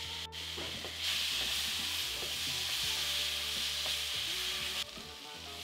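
Diced tomatoes sizzling in hot oil with sautéed onions and spices in a pan, stirred and scraped around with a silicone spatula. The sizzle grows louder about a second in and eases near the end.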